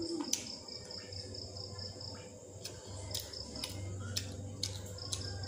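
A cricket chirping: a high, rapid pulsing trill that stops about two seconds in and starts again near the end. Under it runs a steady low hum, with a few faint clicks.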